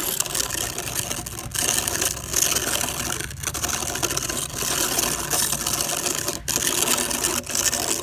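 A plastic toy dump truck's drive gears whir rapidly and steadily as it is pushed along by hand, with a few brief breaks.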